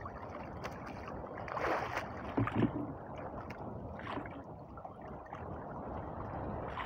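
Water lapping against the hull of a small outrigger boat on open sea, with two louder slaps about two seconds in.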